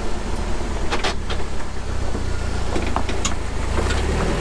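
Rock-crawling pickup's engine running low and steady as the truck creeps over rock, with a few sharp knocks and scrapes about a second in and again past three seconds.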